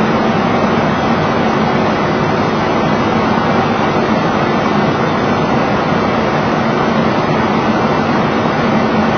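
Steady flight-deck noise of a Boeing 737 descending on approach: a constant rush of air with a low, even hum.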